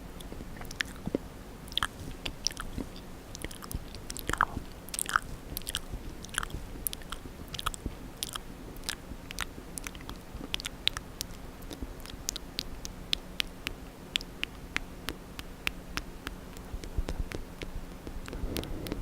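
Close-miked wet mouth sounds: a steady run of sticky tongue and lip clicks and smacks, several a second, in the style of ASMR ear licking.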